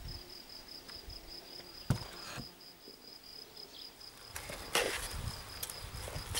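A cricket chirping in a steady, rapid, evenly pulsed high trill. Over it come two sharp clicks about two seconds in and a brief rustle of hands handling the seedlings just before five seconds.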